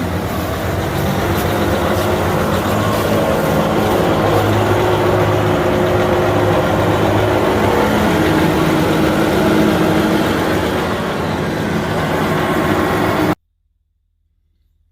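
Wood chipper engine running steadily with the clutch engaged and the chipper drum spinning, on its first run since last fall. The sound cuts off suddenly about 13 seconds in.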